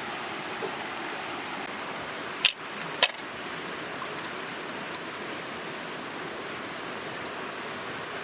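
Steady rush of a small waterfall and stream, with two sharp clicks about two and a half and three seconds in and a fainter one near five seconds.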